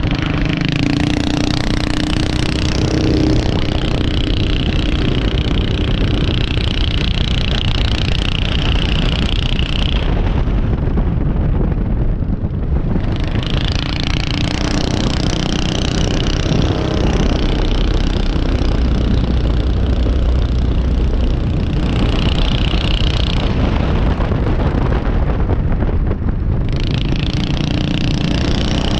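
Small vintage-style open-wheel race car's engine running hard, heard from the cockpit with wind rushing over the microphone. The sound eases off twice, about ten seconds in and again a few seconds before the end, then picks back up.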